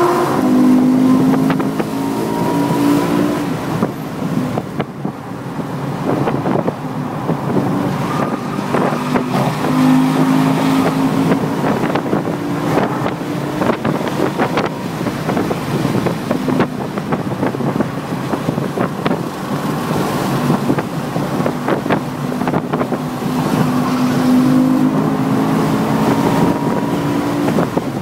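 A car engine heard onboard while lapping a racetrack at speed, running hard with its pitch rising and falling as it accelerates and eases off. Wind noise and frequent short knocks run over it.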